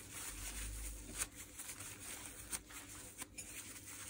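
Faint rubbing and handling noises with a few soft clicks as the rotary hammer's mode switch is wiped clean of old grease.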